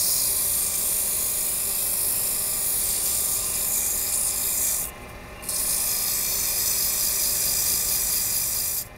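Sandpaper rubbing on a wooden screwdriver handle spinning on a wood lathe, a steady hiss of sanding over the lathe's running. The hiss breaks off once for about half a second around five seconds in.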